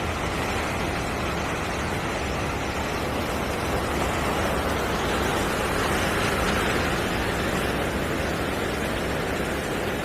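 Steady rushing of ocean surf, swelling a little about halfway through.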